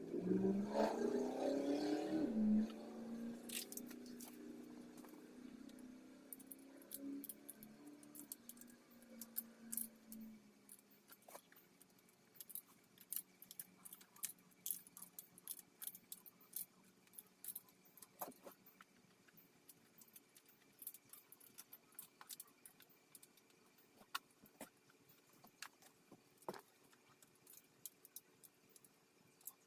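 A brief whirring sound that rises in pitch and then fades away over the first few seconds, followed by scattered light clicks and metallic jingles of tools and bike parts being handled during reassembly.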